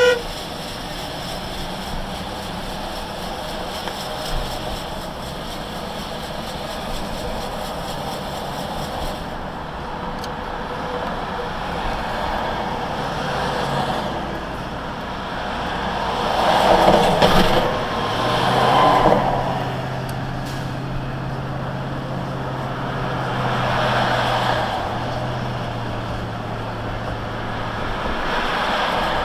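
Steady engine and tyre noise of a vehicle driving at highway speed, heard from inside the cab. It swells louder a few times, and a low, even engine hum runs through the later part.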